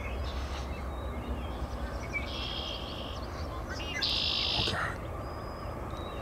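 Songbirds chirping and calling, with two louder buzzy trills, one about two seconds in and a stronger one about four seconds in. Under them is a steady low rumble from the distant approaching freight train.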